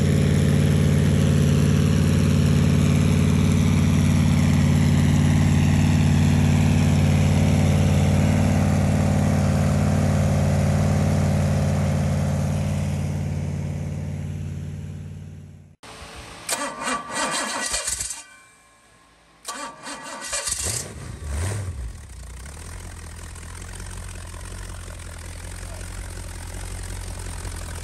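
Rebuilt Pontiac 400 V8 on a run stand running steadily through short makeshift open exhaust pipes during its break-in run, then fading away. After a break, a few seconds of uneven bursts, then the engine idles steadily while its ignition timing is checked.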